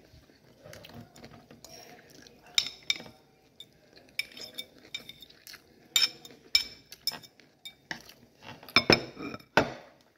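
Cutlery clinking and scraping against a plate during a meal: scattered light clinks with a brief ringing, and a few louder clatters about nine seconds in.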